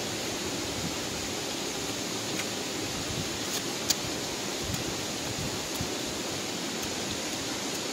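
Steady hiss of outdoor background noise, with a few faint short clicks, the sharpest about four seconds in.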